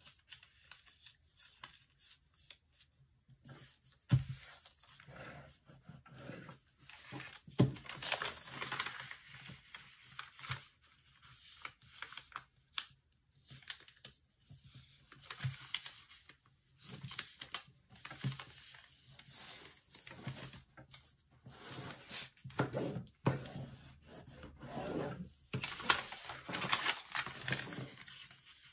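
A large sheet of origami paper rustling and crinkling in irregular bursts as it is folded and creased by hand, with a few sharp taps.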